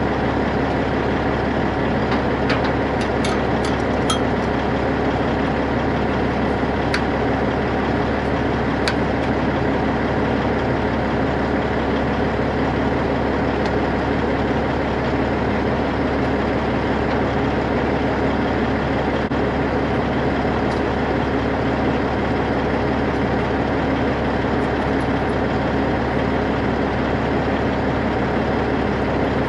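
Kenworth T800 semi tractor's Caterpillar C-15 diesel engine idling steadily. A few light metallic clicks come in the first ten seconds, as the air-line and hydraulic fittings are handled.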